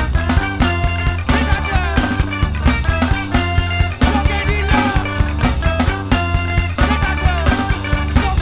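Rock band playing: a drum kit keeps a steady beat under bass and electric guitar.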